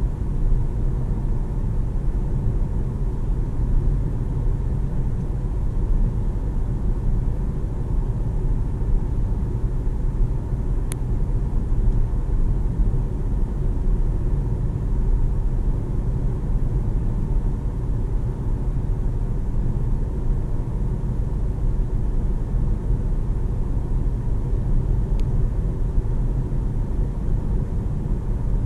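In-cabin noise of a Jeep Compass 1.5 e-Hybrid cruising at a steady speed of about 77 km/h. It is a steady, even low rumble of road and tyre noise with the mild-hybrid petrol engine under it. Two faint short clicks come through, one about eleven seconds in and one a few seconds before the end.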